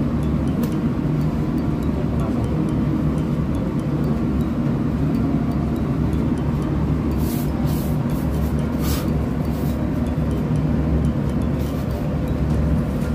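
Steady low drone of running machinery in a ship's engine room, with a few brief crinkles of paper being handled about halfway through.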